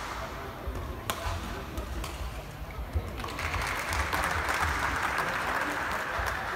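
A sharp hit on a badminton shuttlecock about a second in, then the rally ends and spectators clap and cheer steadily for the last three seconds in a large hall.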